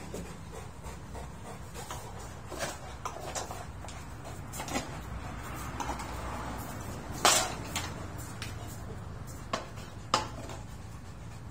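Scattered light clicks and knocks from a large bully-type dog moving about on a tiled floor among furniture, with one louder knock about seven seconds in and two more near the end.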